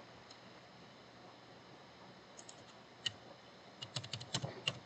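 Computer keyboard keys clicking: a few scattered single keystrokes, then a quick run of key presses in the last second as text in the code editor is deleted.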